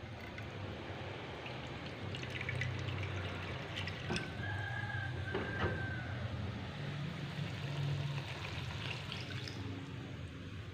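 Beef cooking in liquid in a pot: a steady bubbling, watery hiss with a few light clicks. A brief high tone sounds about four and a half seconds in.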